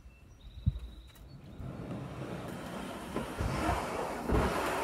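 Plastic kayak hull being slid over the tailgate into a pickup truck bed: a knock at the start, then a rough scraping rub that grows louder, with a few low thuds as the hull shifts.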